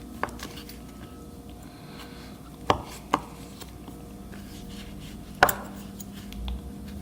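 A knife cutting paneer into cubes on a cutting board, the blade knocking on the board four separate times, two of them close together, the loudest a little after five seconds in. A faint steady hum sits underneath.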